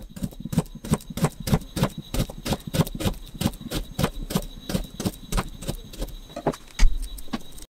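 Kitchen knife slicing a whole raw potato into thin Hasselback cuts on a wooden cutting board. Each stroke ends in a crisp tap as the blade comes down on the foil-wrapped handles set either side, about three a second, with one heavier knock near the end.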